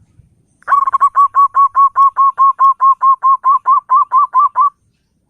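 Zebra dove (perkutut) cooing: a fast, even run of about twenty short notes, roughly five a second, starting just under a second in and stopping abruptly near the end.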